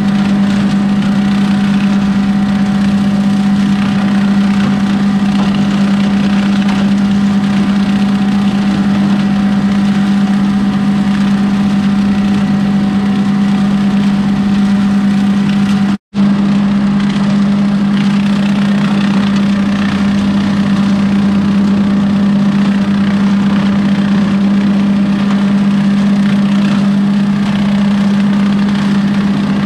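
John Deere 2038R compact tractor's three-cylinder diesel and its rear rotary cutter running steadily while mowing down dry corn stalks: a loud, even drone with a steady low hum. The sound drops out for an instant about halfway through.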